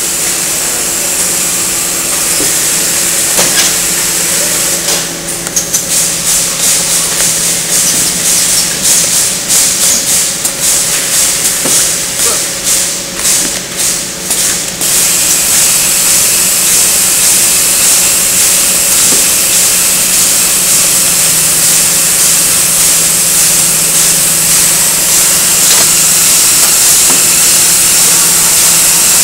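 Running bottle case-packing machine and conveyor line: a steady hiss and machine hum. From about five to fifteen seconds in, quick rhythmic pulses come about two a second.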